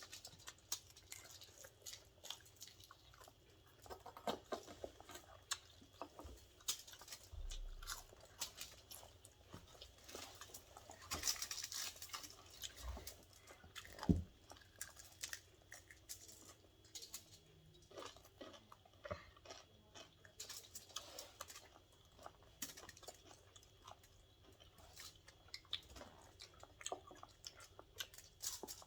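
Close-up eating sounds: quiet chewing with small mouth clicks and soft crunches. A short burst of rustling comes about eleven seconds in, and a sharp tap a few seconds later.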